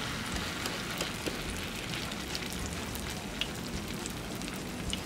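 Fresh corn batter frying in hot oil in a pan: a steady sizzle with many small crackling pops.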